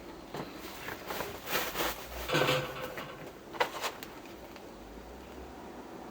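A handful of short clicks and knocks with rustling handling noise, loudest in a brief burst about two and a half seconds in.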